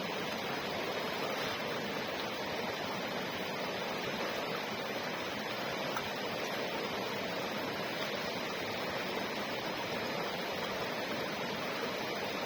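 Steady rushing of flowing river water, an even hiss-like wash with no changes.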